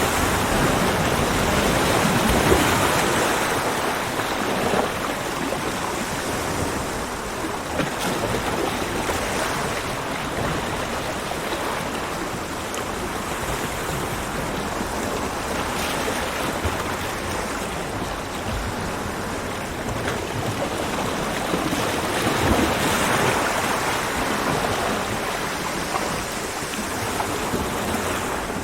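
Ocean surf washing onto a beach: a continuous rush of breaking waves, louder at the start and swelling again about two-thirds of the way through.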